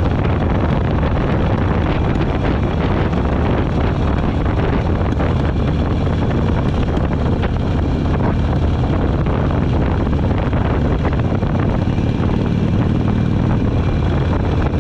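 Harley-Davidson motorcycle's V-twin engine running steadily while riding, with wind rushing over the microphone.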